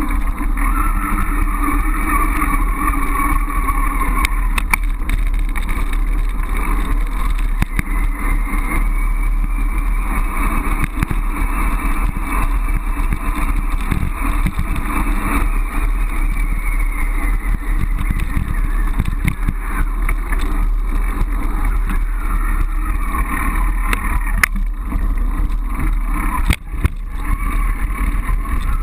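Steady wind buffeting and riding noise from a bicycle in motion, picked up through a handlebar-mounted GoPro HD camera's housing, with a few brief knocks from bumps.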